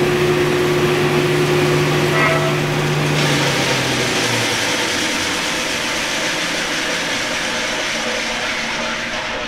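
Tannewitz GH 36-inch bandsaw running with a steady hum, slowed by its foot brake. About three to four seconds in the hum dies away, leaving a rushing hiss that slowly gets quieter as the machine runs down.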